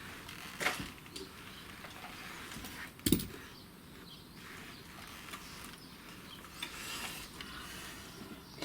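Scattered light clicks and rustling of tools being handled, with one sharp knock about three seconds in.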